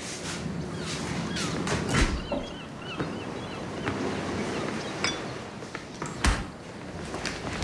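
A couple of sharp knocks, one about two seconds in and a louder one past six seconds, over a background of short high chirps.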